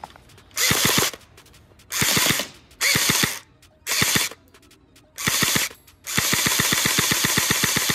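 Umarex HK 416 low-power airsoft electric gun firing on full auto in six bursts. Five short bursts are followed by one longer burst of about two seconds near the end, each a rapid buzz of gearbox cycling and shots.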